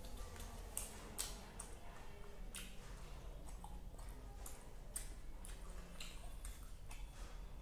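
Close-up eating sounds: chewing with wet mouth clicks and smacks, and fingers mixing rice and curry on a steel plate, giving irregular soft clicks about a second apart over a low steady hum.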